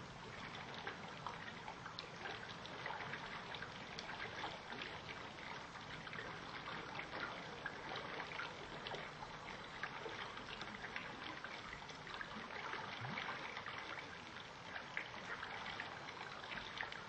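Faint, steady outdoor ambience of trickling running water, with small scattered ticks.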